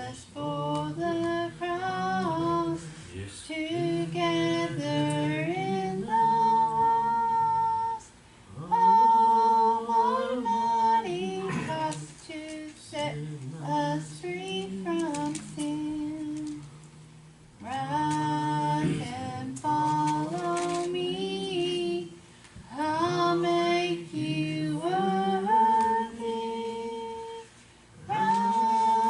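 A woman singing a gospel song, holding long notes, with short breaks between phrases.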